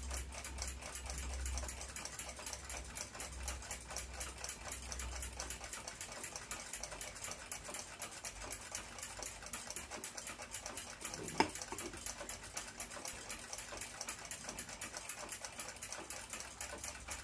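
Chelsea ship's bell clock movement ticking rapidly and evenly, with one sharp knock about eleven seconds in.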